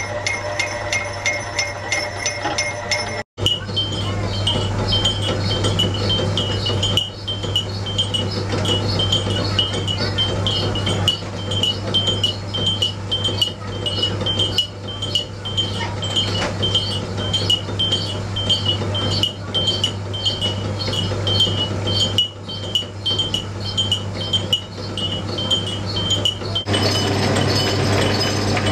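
Small bell on a sugarcane juice crushing machine tinkling in a rapid, regular rhythm as the machine turns, over a steady low hum. The sound breaks off briefly and changes about three seconds in, and shifts again near the end.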